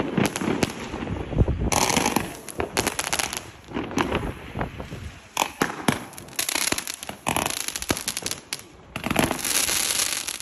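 Consumer firework battery (a 'Fire Emblem' cake) firing shot after shot, with sharp bangs and bursts of crackling. The crackling is thickest about two seconds in and again near the end.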